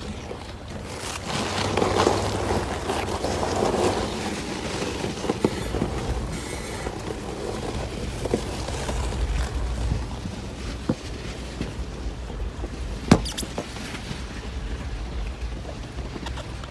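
Vehicle rumbling and jolting slowly over a rough lava-rock track, with scattered knocks and rattles; the rumble is loudest in the first few seconds, and a single sharp knock comes about thirteen seconds in.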